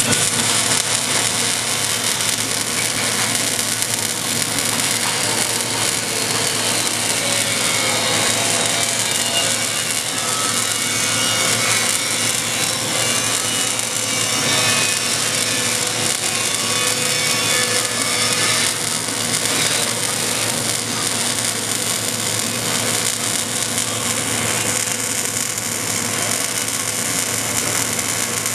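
MIG welding arc on carbon steel pipe, a steady crackling sizzle as the bead is laid around the pipe-to-flange joint.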